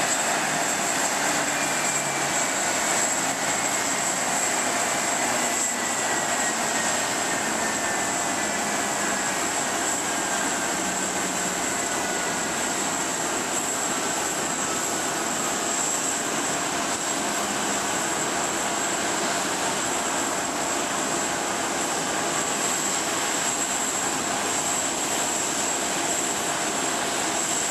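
Airbus A330-200 jet engines running at low power as the airliner comes onto its gate: a steady rushing noise with a high whistle. A fainter whine slides slowly down in pitch through the first half.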